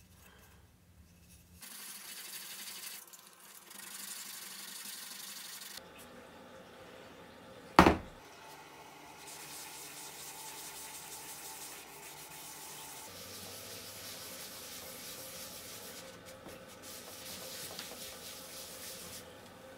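A cloth rubbing over a turned walnut-and-maple piece as boiled linseed oil is wiped on, a continuous soft scrubbing hiss. There is one sharp, loud knock about eight seconds in.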